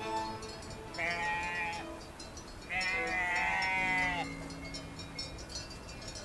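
A sheep bleating twice: a short call about a second in, then a longer, wavering call near the middle.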